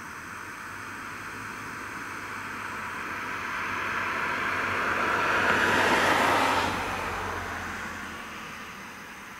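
A car passing by: its tyre and road noise swells slowly, is loudest about six seconds in, then falls away.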